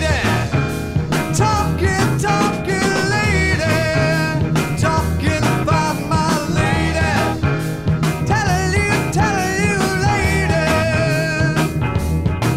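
A 1971 rock band recording played from vinyl: a sung melody over electric guitar, bass and a steady drum beat.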